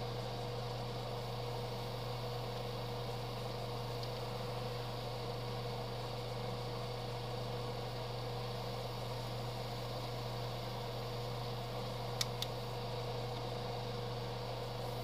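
Steady hum of a small electric motor running, with an even hiss of moving air. Two faint clicks about twelve seconds in.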